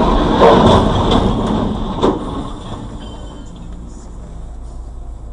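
A light truck rolling over and crashing onto its side on the road: a loud, grinding crash with a sharp bang about two seconds in, then dying down to steady road and engine noise.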